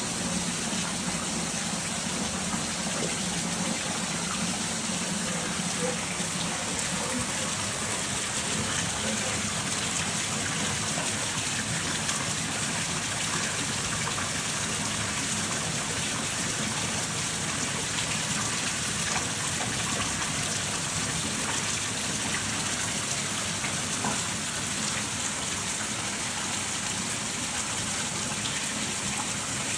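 Steady hiss of falling or running water, unbroken and even throughout.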